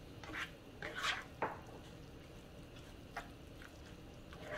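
Silicone spatula stirring a thick, creamy chicken, black bean and corn filling in a skillet: a handful of soft, wet squelching strokes, with one sharper click about a second and a half in.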